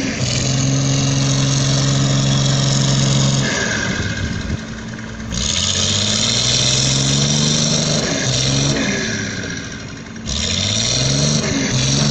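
An excavator's diesel engine working hard: its note climbs and holds high, drops back about four seconds in and again near ten seconds, then climbs again, with a hiss that comes and goes with the revs.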